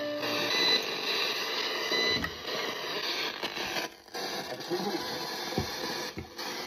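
Radio static hissing, with a few short tones near the start and two sudden brief drop-outs, like a radio sweeping through stations.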